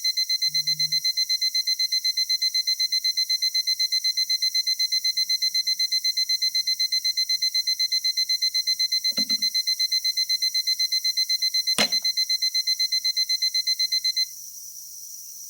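Alarm clock beeping rapidly, about five high beeps a second. A sharp click comes about two-thirds through, and the beeping cuts off suddenly near the end.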